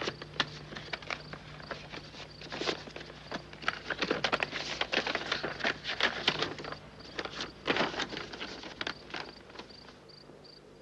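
Paper rustling and crinkling in quick irregular bursts as a parcel's paper wrapping is opened and a letter handled, thinning out near the end.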